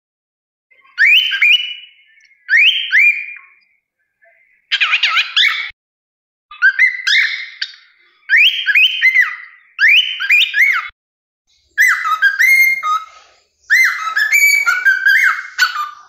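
Male cockatiel whistling its song: about eight short whistled phrases of quick rising and falling slurs, each about a second long with short pauses between. The last phrase, near the end, runs about twice as long.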